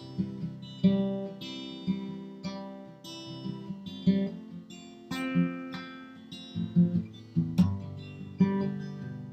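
Acoustic guitar strumming chords, each stroke left ringing, as the instrumental close of the song.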